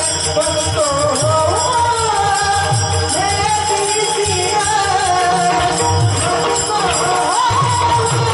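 Marathi varkari bhajan: a male voice sings a devotional melody with ornamental glides, over steady drum strokes and jingling percussion.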